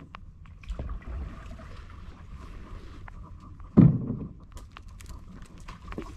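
Canoe pushing into dry brush: a loud knock against the canoe about four seconds in, then dry branches and twigs snapping and scraping along it in quick sharp clicks toward the end.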